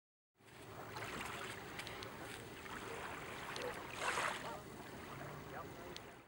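Open-water ambience: water lapping and splashing in a steady wash with small scattered splashes, beginning abruptly, and a brief louder splash about four seconds in.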